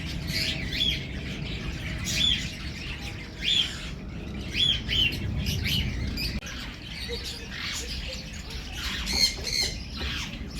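Birds squawking and chirping: many short, arching calls at irregular intervals, over a steady low rumble.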